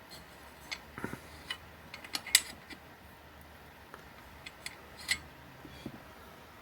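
Small parts of a bearing-and-axle filament spool holder being handled: scattered light clicks and taps at an irregular pace, the sharpest about two and a half seconds in and another near five seconds.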